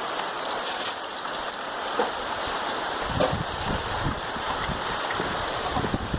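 Steady rain falling and pattering on surfaces. About halfway in, a low irregular buffeting joins the hiss.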